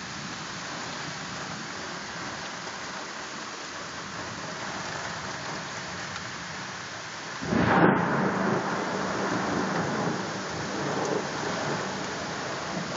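Steady rain hiss in a night thunderstorm, then a sudden loud thunderclap about seven and a half seconds in that keeps rumbling on to the end.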